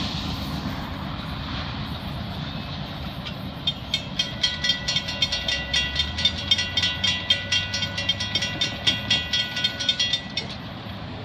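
Railroad crossing bell ringing in quick even strikes, about three a second, over the fading rumble of a passing intermodal freight train. The bell starts about four seconds in and stops shortly before the end, as the crossing gates rise.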